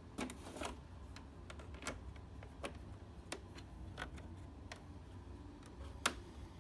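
Irregular plastic clicks and taps as the cleaned air filter is pushed and snapped into its slot in a split air conditioner's indoor unit, with a sharper click near the end.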